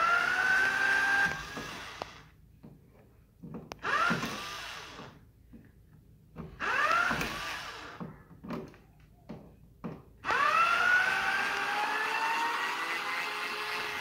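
Cordless power screwdriver whirring in four runs, each rising in pitch as the motor spins up, turning the screws on a wall light switch. The last run is the longest.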